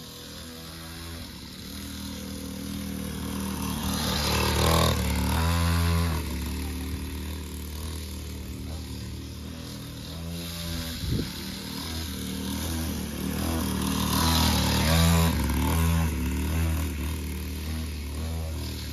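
Small dirt bike engine running as a child rides it around, its pitch rising and falling with the throttle. It grows louder around five seconds in and again around fifteen seconds in.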